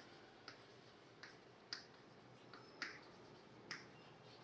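Near silence: room tone with about half a dozen faint, short clicks scattered through it.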